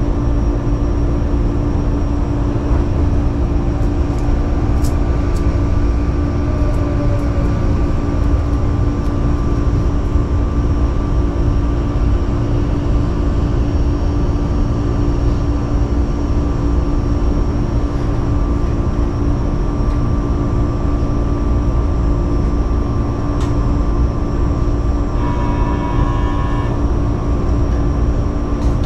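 Steady electrical hum of a stopped Sanyo Electric Railway 3000-series train, heard from inside its cab. A train pulls in on the adjacent track, its motor whine falling in pitch a few seconds in, and a short run of electronic tones sounds near the end.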